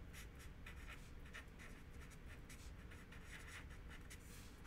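Felt-tip marker writing on paper: a faint run of short, quick pen strokes, several a second, as letters are drawn.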